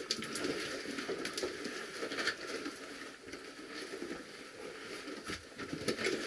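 Cavers scrambling over loose rock and rubble: boots and oversuits scuffing and scraping, with scattered irregular clicks and knocks of stones.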